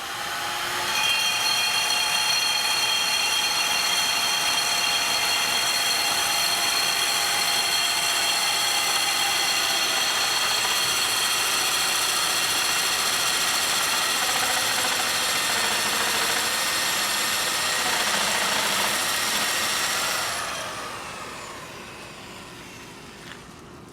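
Virginia Abrasives CD3 three-speed handheld core drill's electric motor and gearbox spinning up, then running at a steady speed with a high whine. It winds down and stops about 20 seconds in.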